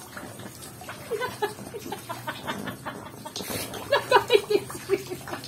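A small child babbling in short, high-pitched vocal sounds, busiest about four seconds in.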